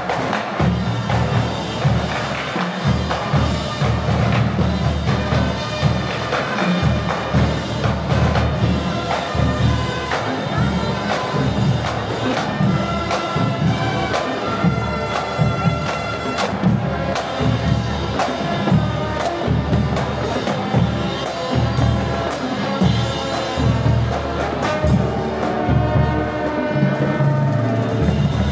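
Parade music with a steady beat and held melody notes.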